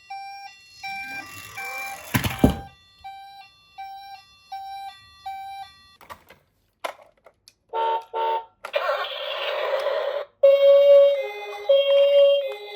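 Electronic toy ambulance siren: a string of short repeated beeps with a sharp knock about two seconds in, then near the end a high-low two-tone siren alternating about twice a second.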